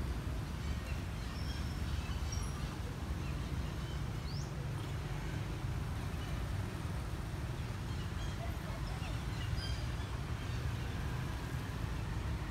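Steady low outdoor rumble with faint, short high chirps and a couple of quick rising whistles scattered through it.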